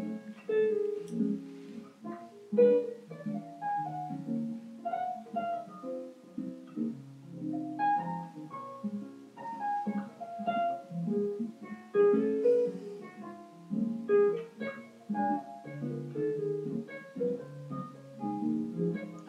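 Background music: a soft instrumental piece, a continuous run of plucked-sounding notes.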